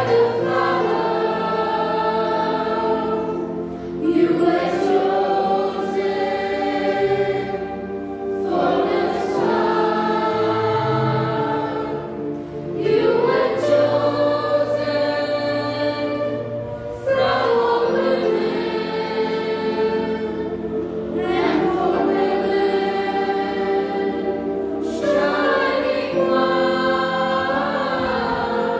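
Small mixed choir of children and teenagers singing a slow hymn in English, in phrases of about four seconds with long held notes, accompanied by a Yamaha electronic keyboard.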